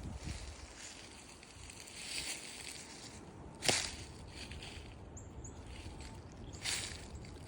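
Several brief rustling noises and one sharp crack about halfway through, with a few faint high chirps.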